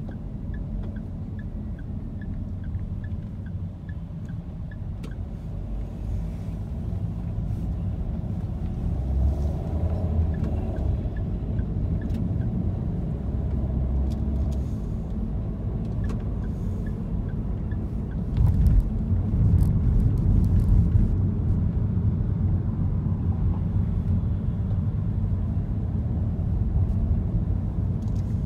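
Car driving in city traffic, heard from inside the cabin: a steady low engine and road rumble that grows louder about two-thirds of the way through, with a light regular ticking in the first seconds.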